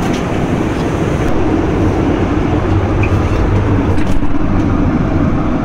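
Steady cabin noise of an airliner in flight: a low, even rush of engine and airflow noise, with a few faint clicks.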